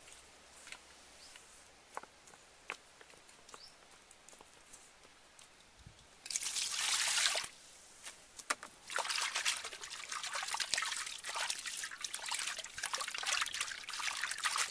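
Water poured into a metal wok, a loud rush lasting about a second, followed by irregular splashing and swishing as a hand scrubs the wok out in the water. The first several seconds hold only faint clicks.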